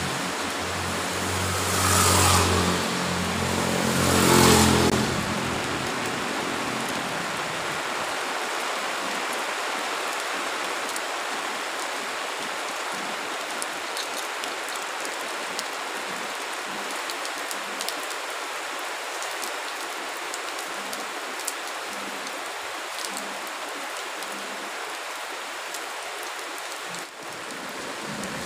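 A steady, even hiss. In the first five seconds an engine runs and swells twice, and a few faint light ticks sound later.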